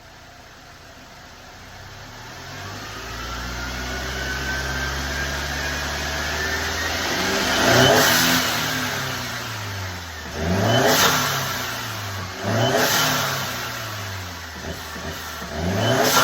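Mercedes-Benz C250's turbocharged engine revving: one long climb in revs, then three quick throttle blips. Each one falls away with a rush of air as the newly fitted blow-off valve vents.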